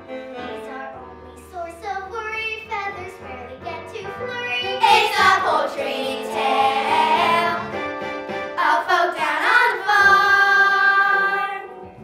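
Children's chorus singing with musical accompaniment, a stage-musical ensemble number that swells to a loud full passage midway and ends on held notes.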